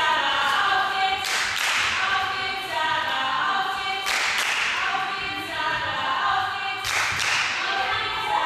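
Several singing voices holding long notes, like a choir or vocal music. A sharp crash cuts in about every three seconds.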